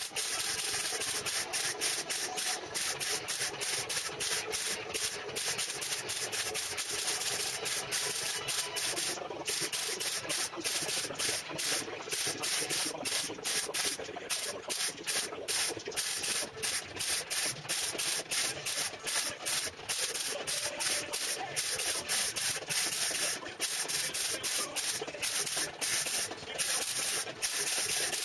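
Metalworking on the car's steel bodywork: a continuous harsh hiss broken by many brief dropouts.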